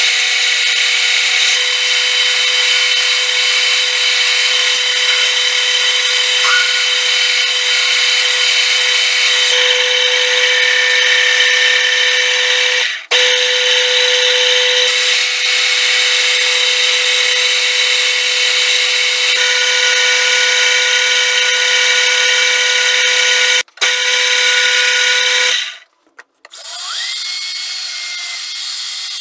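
Metal lathe running at speed, its spindle and drive giving a steady whine of several held tones. It cuts off sharply a few times. Near the end it comes back with a rising whine that settles, a little quieter.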